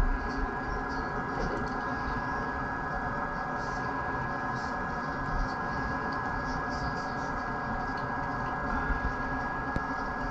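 Steady hum with a constant whine, under faint irregular scraping and ticking of a stick stirring hardener into surfboard resin in a plastic tub.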